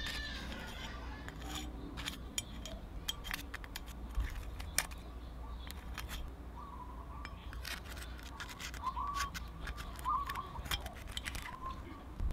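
Small steel screwdriver tip tapping and scraping against an aluminium brake hub and a metal grease can while thick grease is packed into the hub and gear teeth: a run of light, irregular clicks and ticks.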